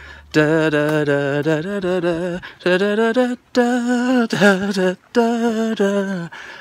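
A man humming a tune in held, wavering notes, phrase after phrase with short breaks between them.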